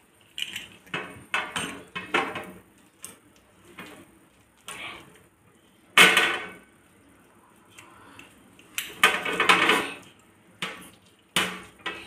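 Pizza cutter wheel rolling through a pizza in a metal pan, its blade scraping and clicking against the pan in a series of short strokes.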